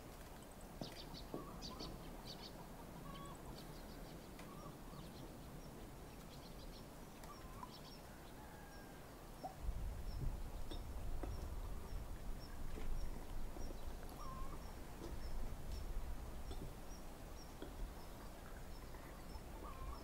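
Faint rural background of birds chirping, with a high chirp repeating about twice a second, and a low rumble that comes in suddenly about halfway through.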